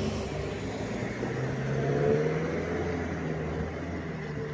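Meitetsu electric train running, a steady low hum with several held tones that swell and rise slightly about two seconds in.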